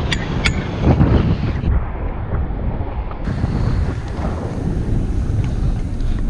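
Loud wind buffeting the microphone during a fast downhill ski run, a steady low rush. Two sharp clicks come about half a second apart near the start.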